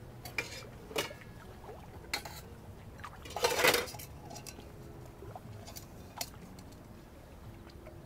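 Scattered light clinks and clicks, with one louder clattering rattle about half a second long, three and a half seconds in.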